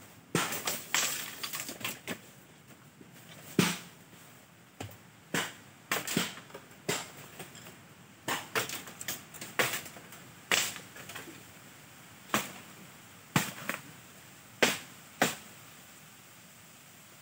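Dry bamboo being chopped and broken: about twenty sharp cracks and knocks at uneven intervals, dying out about three seconds before the end.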